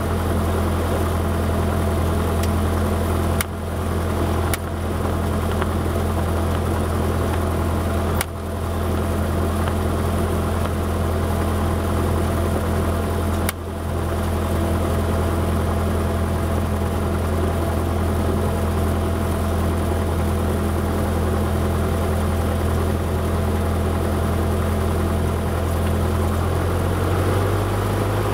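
Cessna 172's piston engine heard from inside the cockpit, running steadily at low power with a deep, even drone; its pitch steps up slightly near the end. Four brief sharp clicks in the first half.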